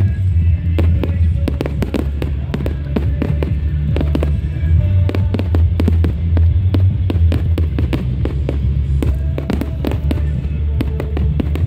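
Display fireworks bursting in the sky: a rapid, uneven run of sharp cracks and bangs. Under them plays music with a heavy bass.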